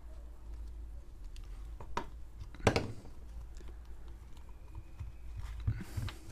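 Hands working a rubber RC short-course tyre on its plastic wheel: light clicks and rubbing, with one sharp knock a little under three seconds in as the superglue bottle is set down on the table. A low steady hum runs underneath.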